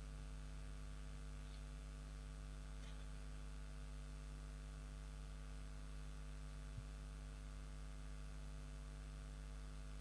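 Steady electrical mains hum with a faint hiss from the microphone and sound system, with one faint tick about seven seconds in.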